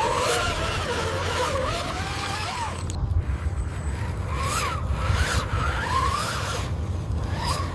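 Construction machinery running with a steady low engine rumble, overlaid by a wavering whine that bends up and down in pitch, and a few short scraping sweeps.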